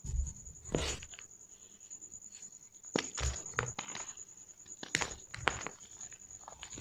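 Balls of Plain Jane gym chalk being crushed, giving separate crunches: two near the start, a quick run of three about three seconds in, and two more about five seconds in.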